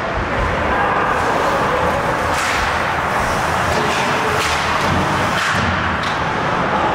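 Ice hockey rink in play: a steady wash of arena crowd and rink noise broken by several sharp cracks and thuds.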